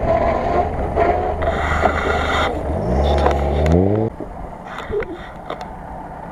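Off-road 4x4's engine running close by, then revving up in a rising pitch that cuts off suddenly about four seconds in. After that a quieter engine follows, with a few sharp knocks.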